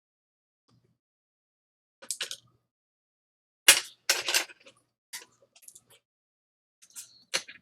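Small metal tools clinking and tapping at a repair bench: a handful of separate light clicks, loudest a little past the middle.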